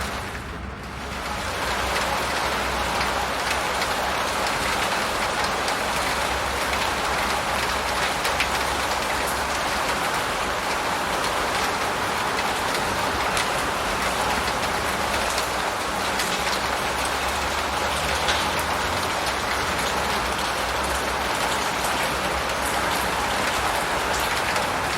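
Steady rain, with many individual drops ticking over an even hiss and a low rumble underneath. It dips briefly about a second in, then holds steady.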